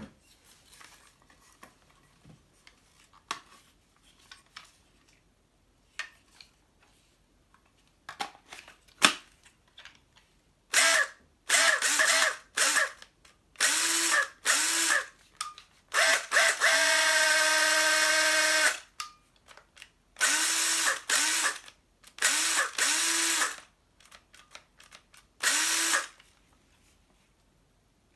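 Used cordless drill driver being test-run in short trigger bursts. Its motor spins up with a rising whine each time, about nine runs in all, one held for a few seconds around the middle. A few light clicks and knocks of handling come before the first run.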